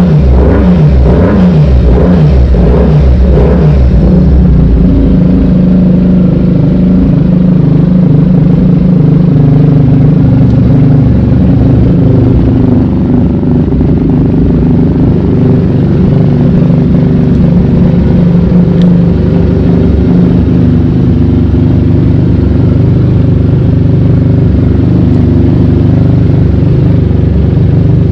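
Benelli 302R's parallel-twin engine revved in a few quick blips over the first few seconds, then settling into a steady idle.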